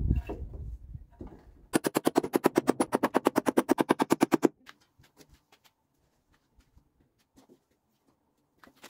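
A fast, even run of about thirty hammer blows on wooden planks, some eleven a second, lasting nearly three seconds, followed by a few faint knocks.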